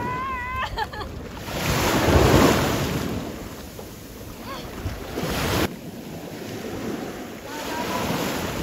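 Wind rushing over the microphone and shallow sea water washing around a windsurf board. The rushing swells loudest about two seconds in and drops suddenly partway through. A woman laughs at the very start.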